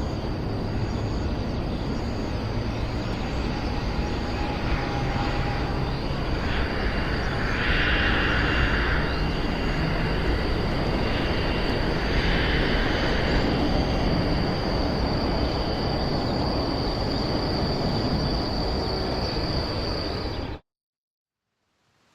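Steady roar of aircraft overhead with a thin, high steady whine over it, swelling slightly in the middle. It cuts off abruptly near the end.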